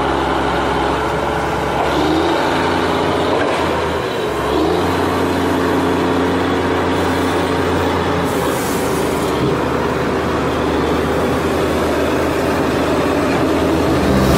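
Heavy truck engine running steadily, with a slight shift in pitch about two seconds in and again near four and a half seconds.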